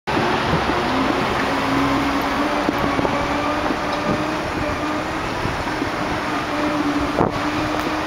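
A Segway's drive motors and gearbox giving a steady whine as it rolls along, with wind rushing over the microphone.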